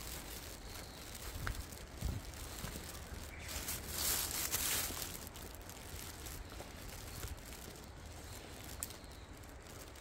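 Rustling and crunching of dry leaf litter and undergrowth under someone walking through the forest, loudest about four seconds in, over a low rumble on the microphone.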